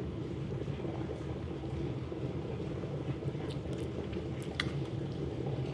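A man drinking a mug of warm liquid in gulps, swallowing it down, with a few small mouth or mug clicks about three and a half to five seconds in.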